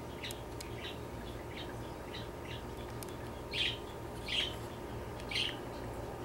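Short high chirps from a small animal or bird, scattered and faint, with three louder ones about a second apart in the second half, over a steady low hum.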